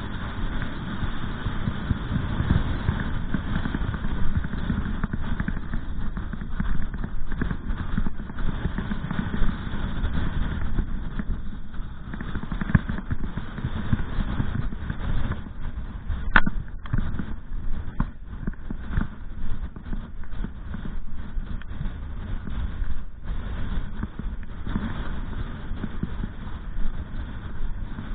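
Strong wind buffeting the microphone in gusts, with a few sharp knocks in the middle.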